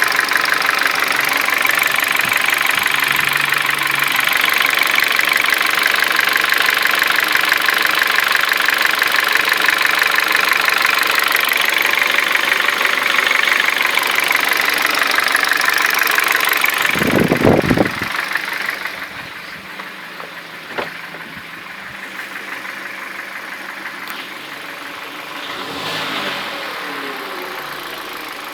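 Kia/Hyundai G4FC 1.6-litre four-cylinder engine idling hot with a rapid, diesel-like metallic clatter that stayed after the timing chain, tensioner and guides were replaced; the cause is unknown. Near two thirds of the way through there is a short loud low thump, after which the engine sounds much quieter.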